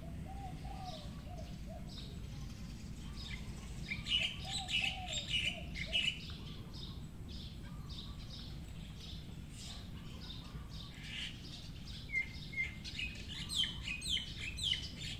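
Birds chirping in clusters, the busiest about four to six seconds in and again near the end, with a lower arching call twice, over a steady low background rumble.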